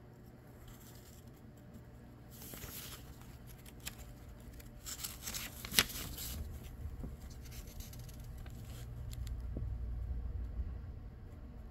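Page of a small old book being turned: dry paper rustling in two short bursts, with a sharp crackle of the page about six seconds in.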